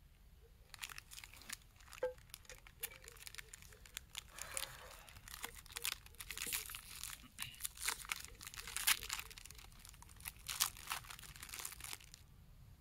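Irregular crinkling and crackling: a dense run of many small sharp crackles that stops abruptly near the end.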